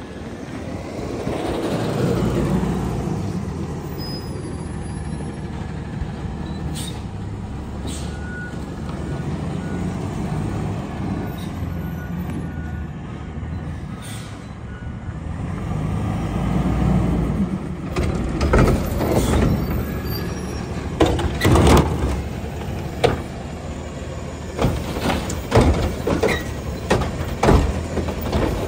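A front-load garbage truck's diesel engine runs as the truck pulls up. From about 18 seconds in, its automated cart arm grabs a plastic wheelie bin and tips it into the can, with a series of sharp clanks and bangs as the bin is lifted and shaken out.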